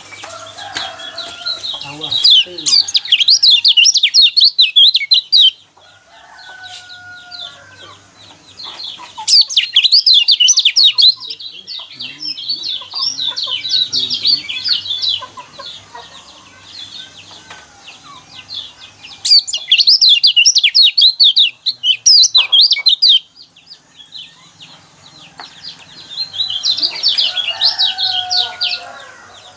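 White-eyes singing a contest-style chorus used as a lure to provoke a white-eye into song. Rapid, high twittering phrases come in four loud bursts of about three to four seconds each, with quieter, lower bird calls between them.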